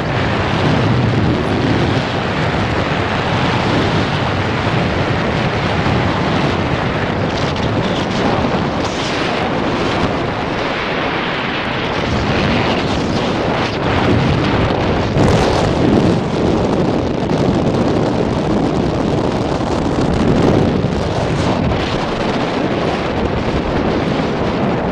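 Airflow of paraglider flight buffeting the camera's microphone: loud, steady rushing wind noise that swells and eases a little, with no engine.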